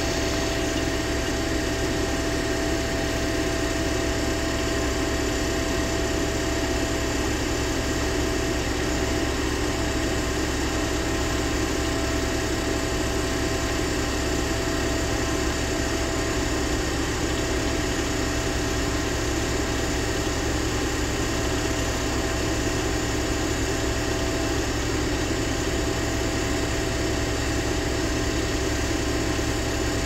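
Engine of a heavy logging machine idling steadily: an even hum with a thin steady whine above it, unchanging throughout.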